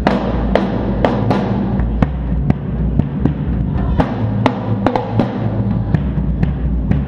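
Drum kit being played, with sharp hits coming about twice a second over a steady low bass.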